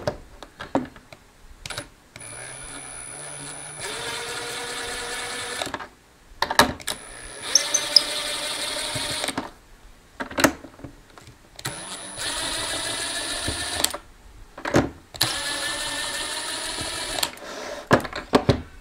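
Milwaukee Fuel cordless power screwdriver running in four separate runs of a few seconds each, a steady motor whine, as it backs screws out of a plastic speaker housing. Short clicks fall between the runs.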